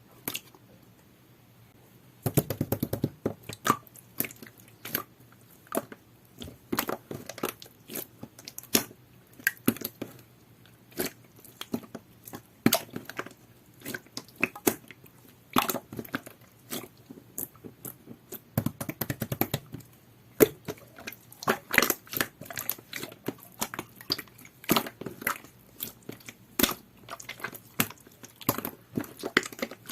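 Clear, jelly-textured slime being squeezed and stretched by hand, making irregular wet clicks and pops that start about two seconds in and at times come in quick clusters.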